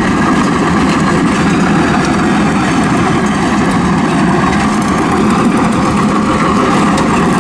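Backhoe loader's diesel engine running steadily under load while its arm-mounted trencher cuts a narrow trench through the gravelly roadside soil.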